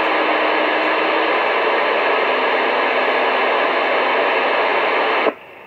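Steady hiss of static from a CB radio receiver, with a faint steady tone under it. It cuts off suddenly about five seconds in.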